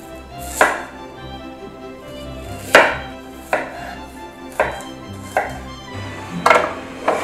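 Kitchen knife chopping through vegetables onto a wooden cutting board: about seven separate strokes at an uneven pace, roughly one a second, the loudest a little under three seconds in.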